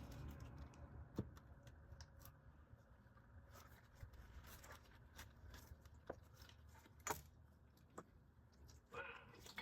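Near silence with a few faint, sharp metallic clicks and clinks, about 1, 6, 7 and 8 seconds in, from parts being handled while intake runners are fitted to a small-block Chevy engine.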